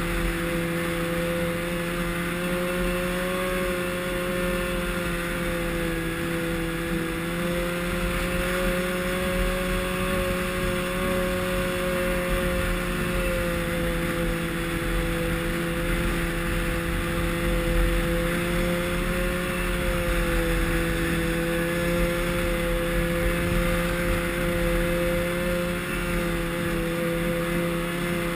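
Snowmobile engine running steadily at trail-cruising speed, its pitch wavering only slightly with small throttle changes, over a steady rushing noise.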